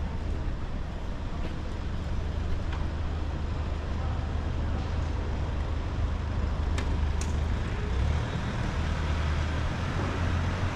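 Vehicle engine running close by, a steady low hum over general street traffic noise.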